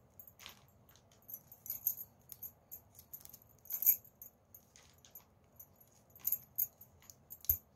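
Flat plastic craft wire strands rustling and clicking against each other as they are pulled through and woven into the pouch: irregular light ticks and scrapes, with a louder click a little before the middle and a sharp tap near the end.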